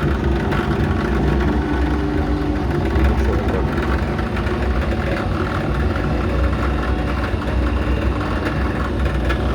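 JET drill press with a variator speed drive running steadily, a constant machine hum.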